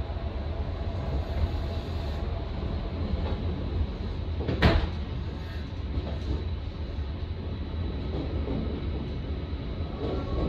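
Electric train running along the line, heard from inside the front car: a steady low rumble, with one sharp clack of the wheels a little before the middle.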